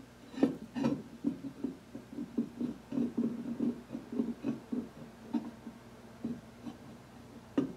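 Machined aluminum head of a bubble wheel balancer knocking and clicking against its center post as it is worked down onto the pivot point: a run of short irregular taps, two or three a second, thinning out after about six seconds.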